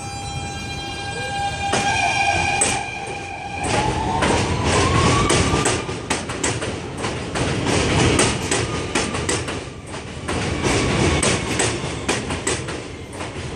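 R160 subway train pulling out of the station. A steady electrical whine stops about four seconds in. Then the motors whine upward in pitch as it accelerates, with rapid clicking of the wheels over the rail joints as the cars go by.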